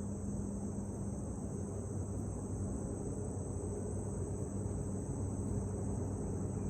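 Steady high-pitched chorus of insects, likely crickets, over the low, steady noise of highway traffic.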